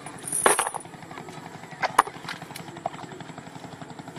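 Water splashing and a couple of sharp knocks as a fisherman works a bamboo-poled hand net in shallow river water among water hyacinth. The loudest splash comes about half a second in, then two quick knocks near the middle, over a steady low drone.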